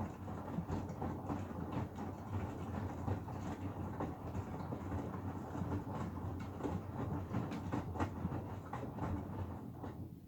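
Hoover Axi 9 kg washing machine's drum tumbling a load, with many irregular knocks and clunks over a steady rumble, then stopping abruptly at the end as the drum pauses.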